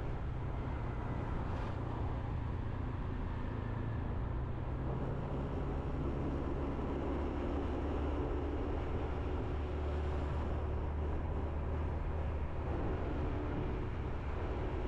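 Motorbike engine running while riding, with wind and road noise; the engine note shifts slightly about four seconds in and again near ten seconds.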